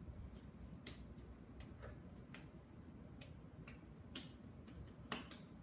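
Faint, irregular ticks and soft taps from hands pressing and shaping a ball of sugar cookie dough, about one every half second to a second.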